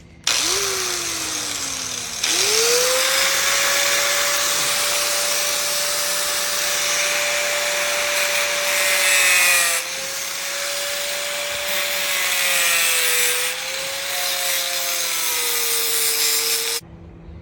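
Handheld electric power tool working the metal pulley bushing. It gives a loud grinding or rubbing noise over a steady motor whine. It starts briefly, winds down, then spins up again about two seconds in, dips under load a couple of times, and cuts off near the end. The work is making the bushing fit the pulley, and the metal gets hot.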